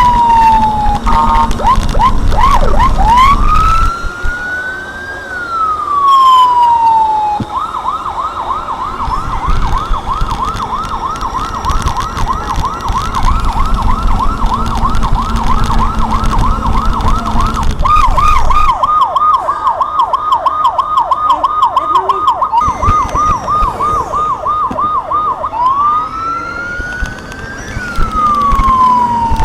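Vehicle-mounted electronic siren cycling through its modes: slow wailing sweeps, switching about seven seconds in to a long rapid yelp, then back to the slow wail near the end. A low vehicle rumble runs beneath it at times.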